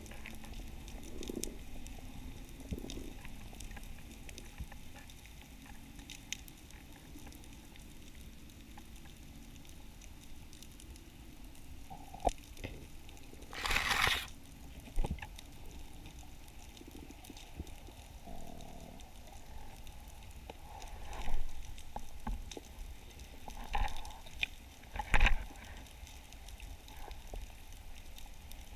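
Underwater sound picked up through a diving camera's housing: a steady low rush with scattered faint clicks. A louder, noisy rush of about a second comes around the middle, and several sharp knocks come in the last eight seconds, the sounds of the diver moving and his gear bumping.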